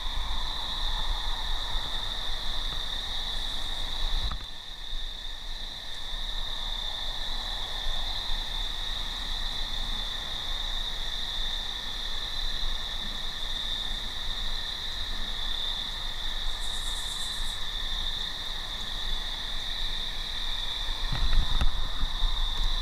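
Insects trilling in a steady high-pitched chorus, with a few low knocks near the end.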